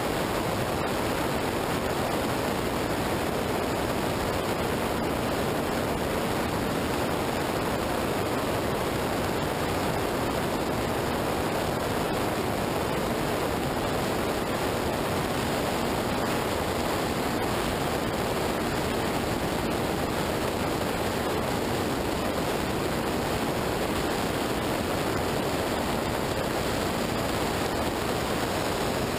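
Steady rush of wind and wet-road tyre spray on an outside-mounted action camera's microphone at road speed in the rain, with no engine note standing out.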